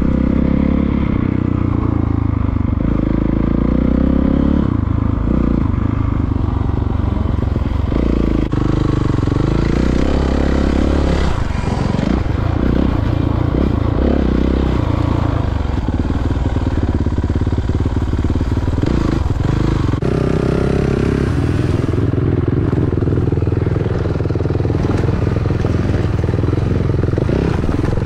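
Dirt bike engine running and revving up and down with changing throttle as it is ridden.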